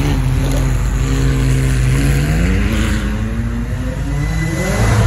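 Air-cooled Porsche 911 (993-generation) flat-six pulling away. Its note holds steady for about two seconds, then rises in pitch as the revs climb, and settles higher.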